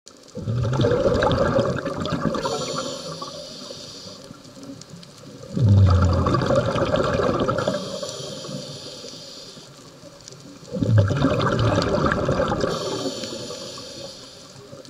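Scuba diver breathing underwater through a regulator. Three exhalations, about five seconds apart, each a sudden gush of bubbles that gurgles and fades, with the hiss of an inhalation between them.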